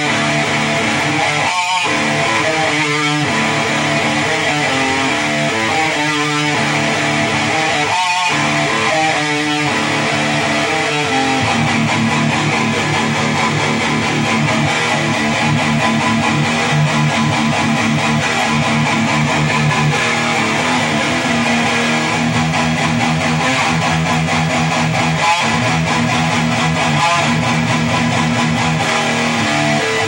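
Electric guitar through a Crate FlexWave 120 half stack set for a metal sound, playing heavy riffs. The first ten seconds or so are broken by several short stops; after that comes unbroken fast rhythmic picking.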